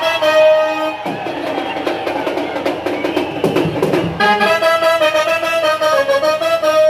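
Brass band with drums playing a tune: horns hold long notes, ease off about a second in, and come back strongly about four seconds in, over a steady drum beat.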